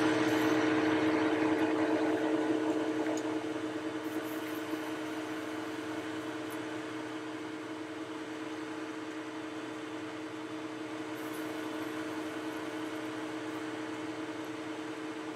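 Boxford metal lathe running with a steady hum while a strip of emery cloth is held against the spinning chuck-key bar to polish it, adding a rubbing hiss that is strongest in the first few seconds and then settles.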